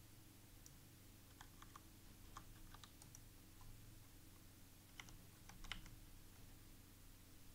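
Faint clicking of computer keyboard keys being typed in a few scattered bursts, over a low steady hum.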